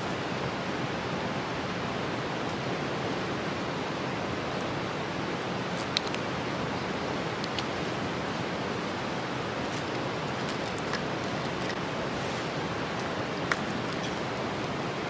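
Steady rush of flowing stream water, with a couple of light clicks, one about six seconds in and one near the end.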